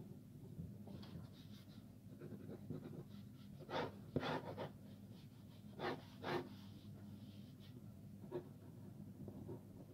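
Pen scratching on paper in quick short strokes, with two pairs of louder noisy rushes about four and six seconds in.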